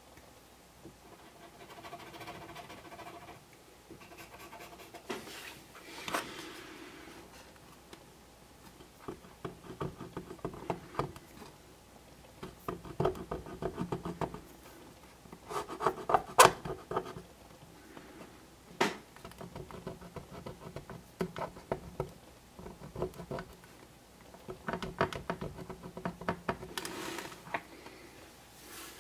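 Felt-tip marker scratching and rubbing over the ribbed plastic roof grille of a model train body, in repeated bursts of short strokes that rattle across the ribs, with a few sharp clicks.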